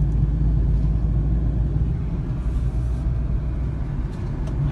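Strong storm wind rumbling steadily, buffeting the microphone.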